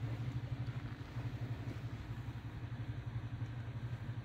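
An engine idling steadily, a low even drone.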